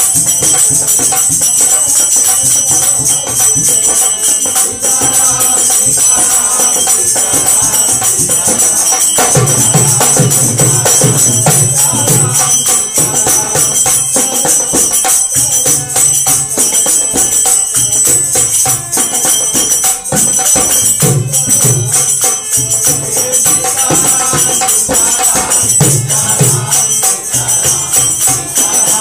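Devotional song played live by a seated group: men singing to a harmonium and a dholak drum, with a fast, steady jingling percussion on top. The singing grows stronger about a third of the way in.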